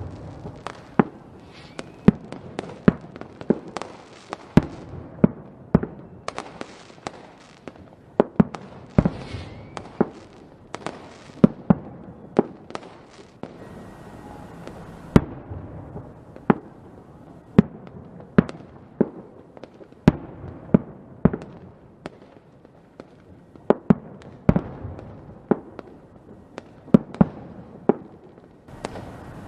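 Fireworks going off: a long run of sharp bangs at irregular intervals, a few a second at the busiest moments, over steady crackling, with a faint whistle now and then.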